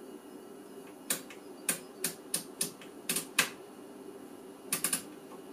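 About a dozen sharp clicks in irregular clusters, from the controls of a bench current source being pressed to raise its output current, over a steady low hum.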